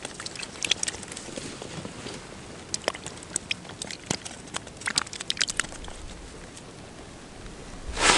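Sparse, irregular small clicks and crackles in short clusters over a faint steady hiss.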